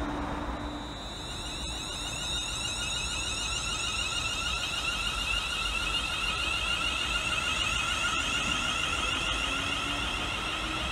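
Class 350 Desiro electric multiple unit passing at the platform, its traction equipment giving a steady high electric whine of several tones over a low rumble.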